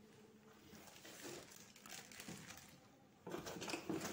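Plastic packaging bags rustling and crinkling as they are handled, faint at first and louder about three seconds in.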